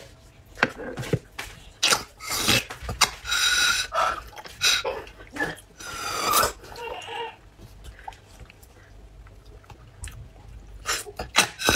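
Close-miked slurping and sucking at braised pork bones, with wet lip smacks. There are several long hissy slurps in the first half, a quieter stretch after about eight seconds, and more smacks near the end.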